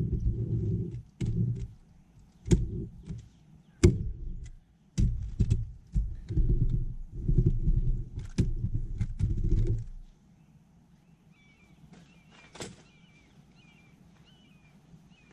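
Uneven low bumps and sharp clicks of handling for about ten seconds, then a small bird chirping faintly.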